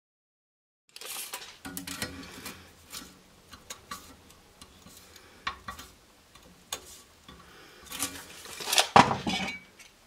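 Metal workshop handling sounds starting about a second in: scattered light clicks, clinks and scrapes from a steel flat bar in a bench vise being measured with a steel tape measure and marked, with one louder scrape about nine seconds in.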